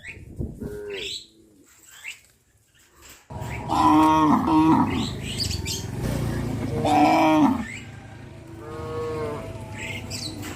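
Cows mooing: several long calls, one after another, the loudest starting about three and a half seconds in, over a low rumble of the herd.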